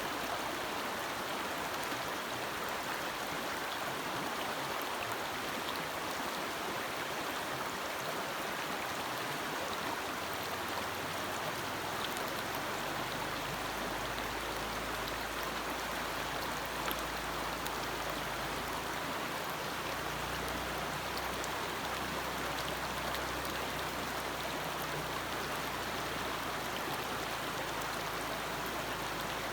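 Forest stream flowing steadily, an even rushing of water. A low rumble joins underneath about twelve seconds in.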